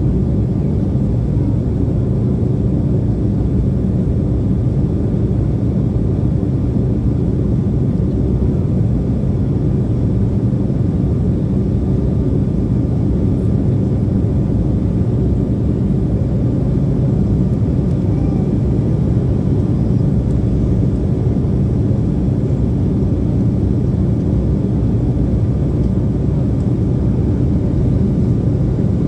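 Embraer 175's twin GE CF34-8E turbofan engines heard from inside the passenger cabin during the climb after takeoff: a steady low rumble of engine and airflow noise, with a faint steady whine above it.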